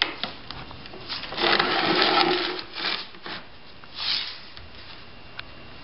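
Felt-tip marker dragged along a concrete beam's rough surface against a straight edge: a scratchy stroke about a second and a half in that lasts around a second and a half, followed by two shorter strokes, with a few light clicks.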